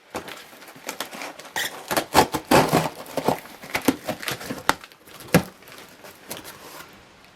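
Packaging being handled and opened by hand: irregular crinkling, rustling and tearing with sharp clicks, busiest a couple of seconds in and thinning out near the end.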